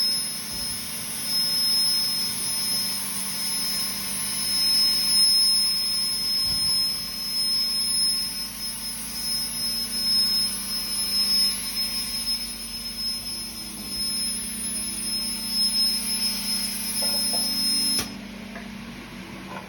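Industrial machinery running steadily with a constant high-pitched whine over a low hum, cutting off suddenly near the end.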